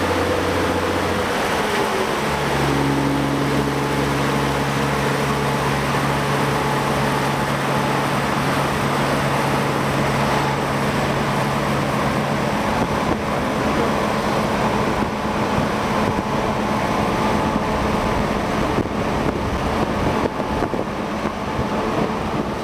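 Straight-piped DAF XF 480 truck engine droning at motorway speed, mixed with steady road and wind noise. Its note steps down slightly about a second in, holds steady, then sinks into the road noise after about twelve seconds.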